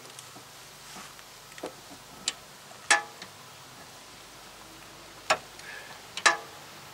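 Click-type torque wrench clicking as a rear brake caliper bolt is tightened to 46 ft-lbs: a handful of sharp metallic clicks spread over several seconds, the loudest about three seconds in and twice more near the end.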